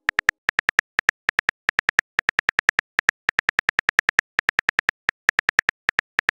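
Phone keyboard typing clicks: short, sharp ticks in quick, uneven runs of several a second, as a message is typed.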